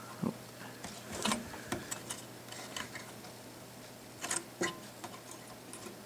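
Faint, irregular small clicks and taps of fingers working the hinged metal cover of a small firmware chip socket on a server circuit board, a couple a little louder about four and a half seconds in.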